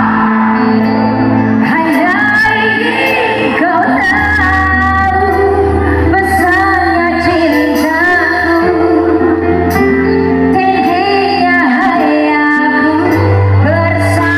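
Loud live band music with a singer, recorded from within the crowd.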